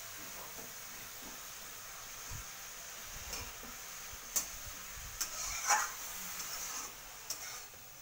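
Chopped greens sizzling in a metal kadai on a gas flame as their water cooks down, with a spatula stirring through them. A few sharp scrapes and knocks of the spatula against the pan come in the second half.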